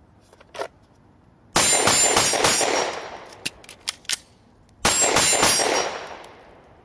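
Semi-automatic pistol fired in two rapid strings of about five shots each, the second about three seconds after the first. Each string rings out and fades over a second or more, with a few faint ticks between the strings.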